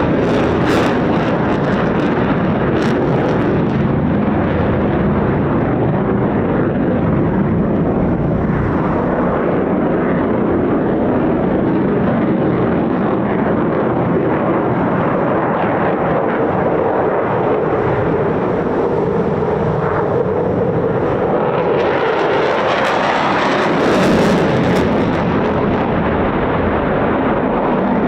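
Eurofighter Typhoon's twin EJ200 jet engines during a display flight, loud and continuous. A droning tone in the noise slowly falls, then climbs again about three-quarters of the way through, where the sound is at its brightest and loudest.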